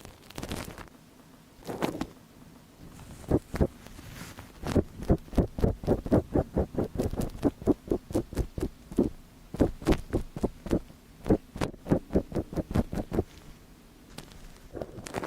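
ASMR ear-cleaning sounds close on a microphone's ear: a few separate rubs, then from about five seconds in a fast, even run of short scratchy strokes, about three or four a second, that stops a couple of seconds before the end.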